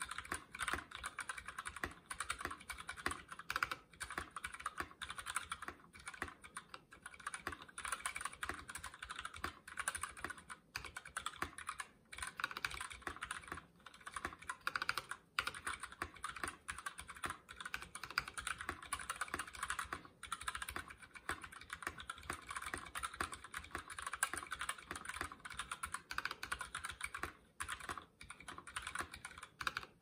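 Fast, continuous typing on a KBD75v2 mechanical keyboard with stock Gateron Milky Black linear switches and HK Gaming PBT keycaps: a dense run of keystroke clacks, broken by brief pauses every few seconds.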